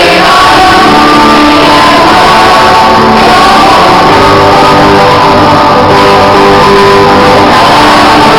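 Church worship band music: guitar-led praise song with singing voices, played and recorded very loud.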